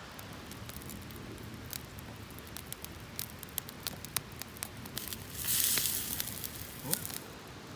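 Wood campfire crackling, with scattered sharp pops and a louder hiss lasting about a second after the middle.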